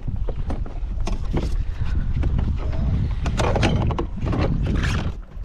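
Wind buffeting the microphone on open water, a steady low rumble, with scattered knocks and rustles of handling on the kayak.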